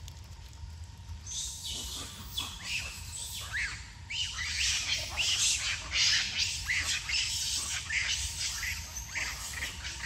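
A troop of monkeys squealing and chirping: many overlapping high-pitched calls start about a second in and thicken after four seconds. A steady low rumble runs underneath.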